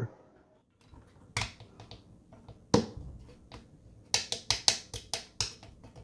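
Sharp plastic clicks and taps as a pedal-assist sensor magnet disc is handled and pushed onto a bicycle's bottom bracket spindle: two single clicks, then a quick run of about nine clicks near the end.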